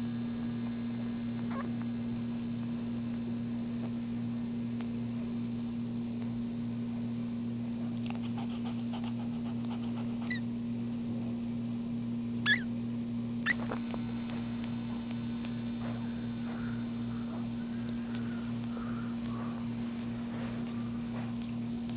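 A steady low electrical hum, with faint high squeaks from newborn Maltese puppies as they nurse. Two short, sharper squeaks come about halfway through.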